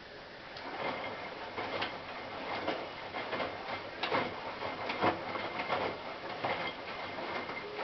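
Hotpoint NSWM 843C washing machine running, its drum turning with an uneven rhythm of swishes and knocks that starts about half a second in, over a faint steady high tone.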